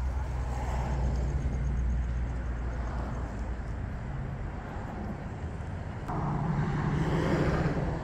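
Steady outdoor road-traffic rumble, swelling louder for the last couple of seconds as a vehicle goes by.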